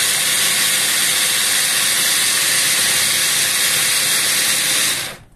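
Electric mini food processor, a hand-blender motor on a chopper bowl, running steadily at full speed as its blade chops herbs, garlic, mustard, oil and lemon into a wet marinade. It stops suddenly near the end.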